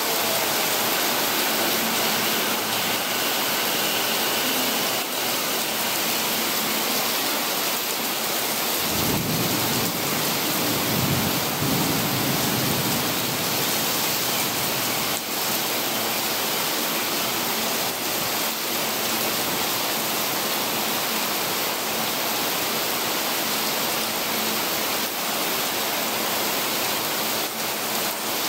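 Torrential rain pouring steadily onto the station roof, tracks and platform, with water streaming off the roof edge. About nine seconds in, a low rumble of thunder swells and fades over some four seconds.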